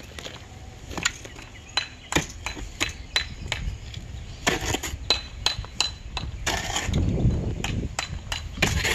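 Irregular sharp metallic taps and clinks, some with a brief high ring, like masonry hand tools striking stone. About six and a half seconds in they come thicker, mixed with rough scraping.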